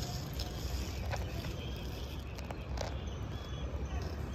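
Outdoor background noise: a steady low rumble with a few faint clicks and a couple of short, faint high chirps near the end. The crawling millipede itself makes no audible sound.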